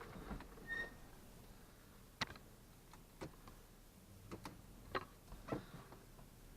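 Faint, irregular clicks and taps, about eight in all, with one short high beep about a second in.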